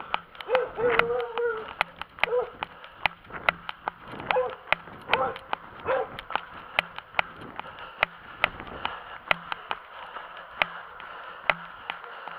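Steady footfalls of someone running on a paved road, a little over two steps a second. Short, high whining calls are mixed in over the first six seconds or so, then fade.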